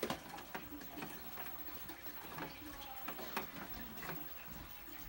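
VCR mechanism clicking and ticking as a VHS tape threads and starts playing after Play is pressed: irregular small clicks over a low hiss, with a sharper click right at the start.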